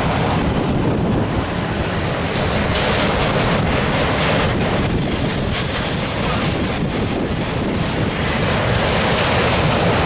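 A train of autorack freight cars rolling past close by: the steady, loud noise of steel wheels running on the rails.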